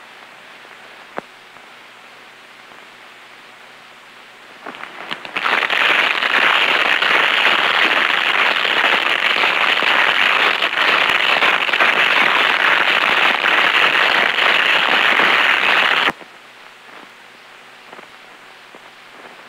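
Shielded metal arc (stick) welding arc crackling as a bead is run, a dense, steady crackling hiss that comes in about five seconds in and cuts off suddenly about ten seconds later when the arc is broken.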